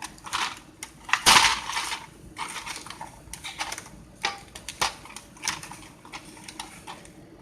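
Unboxing handling: plastic packaging crinkling in short bursts with scattered sharp clicks and knocks. The longest crinkle comes about a second in.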